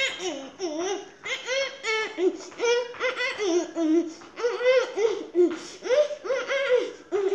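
A child laughing in a quick string of high-pitched bursts, about two or three a second.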